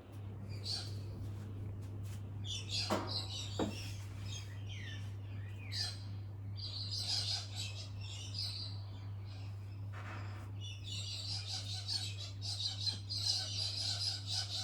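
Birds chirping and arguing, with quick calls and trills in clusters that grow busier in the second half, over a steady low hum.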